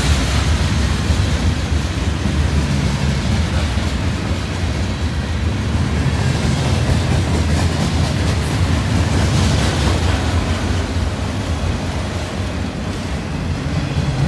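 Norfolk Southern freight train's cars rolling past close by: a steady rumble and rattle of covered hoppers and then autorack cars on the rails.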